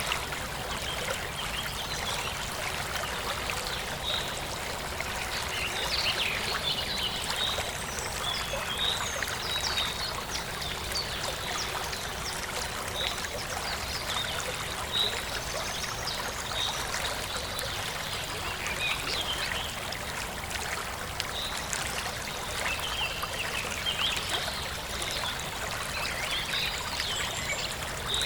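A small forest stream trickling and running steadily over stones, with birds chirping in short calls throughout.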